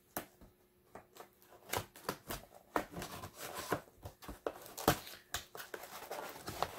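Cardboard box being opened by hand: irregular sharp clicks, scrapes and tearing of cardboard as the tucked-in top flap is pried loose, coming more often in the second half.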